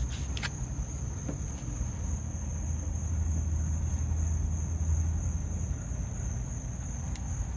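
Insects trilling steadily in one unbroken high tone, with a low rumble underneath and a few faint clicks near the start and near the end.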